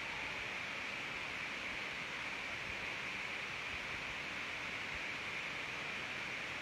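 Steady, even hiss of background room noise picked up by a phone's microphone, unchanging throughout, with no voice.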